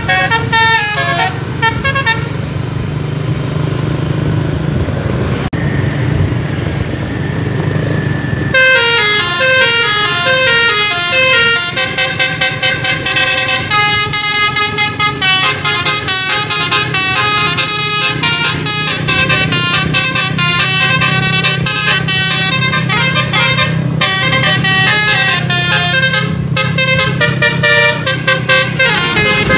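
Bus's telolet musical air horn playing tunes of many notes. A few notes sound at first, then from about eight seconds in rapid runs of notes go up and down. The bus's engine runs steadily underneath.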